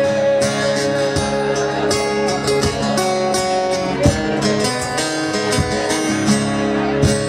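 Two acoustic guitars strumming an instrumental break, with a stompbox thumping the beat.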